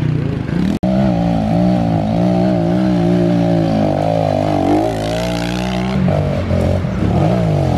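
Kawasaki KLX110 pit bike's small four-stroke single-cylinder engine running as the bike rides down a dirt trail, its pitch wavering, with a brief break about a second in. Near the end the revs drop and rise again several times.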